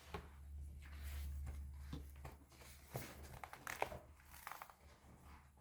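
Faint paper rustling and light clicks of a picture book being handled and its pages turned, over a steady low hum.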